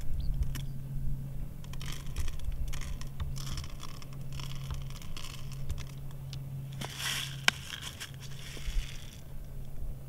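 Hands scraping and rustling the paper covers over holes in dry soil, with plastic bottles crinkling, in irregular small strokes. A single sharp click about seven and a half seconds in.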